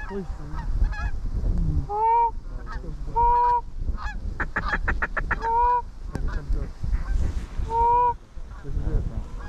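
Goose honks: four drawn-out, level-pitched calls a second or two apart, with a quick run of about ten short clucks in the middle. A low rumble of wind on the microphone sits underneath.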